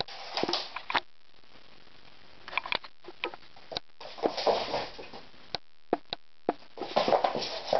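A Bengal kitten's paws and claws scrabbling and tapping on a laminate floor as it pounces and runs, heard as scattered sharp clicks and short scuffles, with a quiet stretch about a second in.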